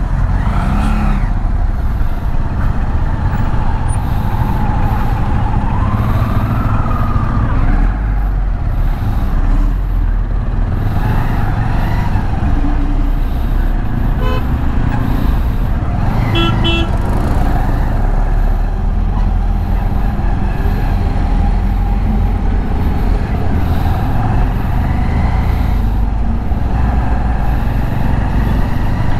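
Motorcycle on the move in city traffic: a steady loud rumble of wind and the Bajaj Avenger 220's single-cylinder engine running, with other traffic around. Vehicle horns honk twice about halfway through, the second a little longer.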